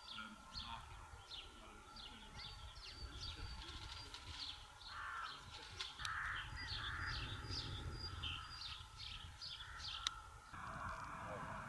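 Small birds chirping repeatedly, with a few louder harsh calls near the middle, over a low steady rumble.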